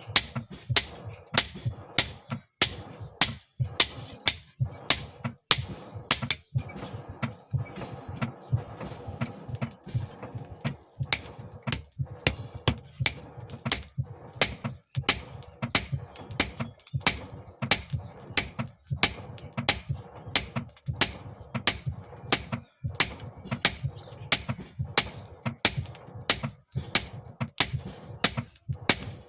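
Hand hammer striking steel on an anvil: a steady run of ringing blows, about two a second, while a file is forged into a knife blade.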